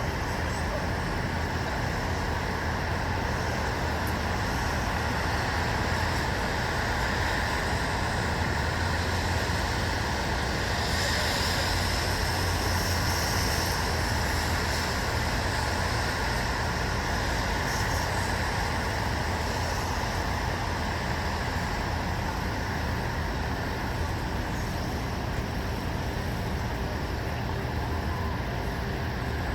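Steady hum of distant road traffic, an even rumbling wash with no single event standing out, swelling slightly about eleven to fourteen seconds in.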